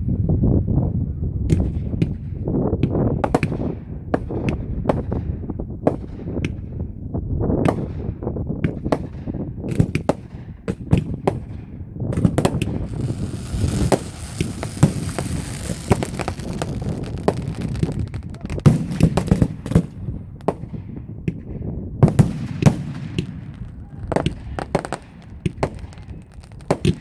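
A box of consumer fireworks set off by wind-blown sparks, going off uncontrolled: rapid, irregular cracks and bangs over a low rumble. A loud hiss of spraying sparks rises for several seconds about halfway through, then the bangs go on.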